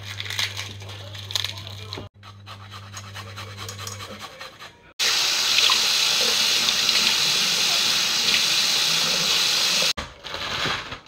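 Kitchen tap running in a steady stream for about five seconds in the middle, splashing over a metal grater into a pot. Before it come light crackling handling sounds of garlic being peeled, and near the end a plastic bag rustles.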